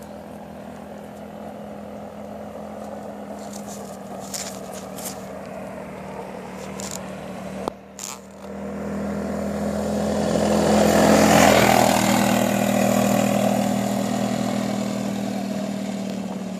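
250cc automatic ATV engine running steadily, cutting out briefly about halfway through, then growing louder to a peak and fading again near the end.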